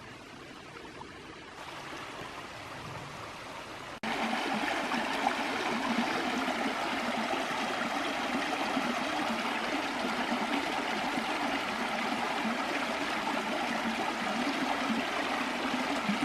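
Creek water rushing and splashing over small cascades, a steady noise. It is fainter for about the first four seconds, then jumps abruptly louder and stays steady.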